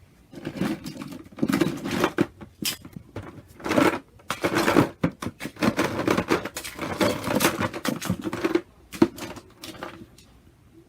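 Hands rummaging and splashing in bath water, grabbing small plastic toys, in irregular bursts with a quieter stretch near the end.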